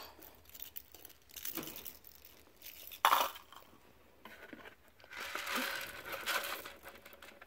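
Toys being pulled out of the bedding of a wire rat cage: rustling and crinkling, with a sharper knock about three seconds in and a longer rustle from about five seconds on.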